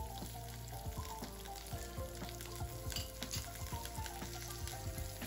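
Shallots, chillies and curry leaves sizzling in hot coconut oil in a nonstick kadai, stirred with a wooden spatula that clicks and scrapes against the pan, over soft background music.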